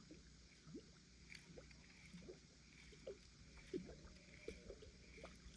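Faint water around a kayak: small, irregular plinks and lapping at the hull, a few a second.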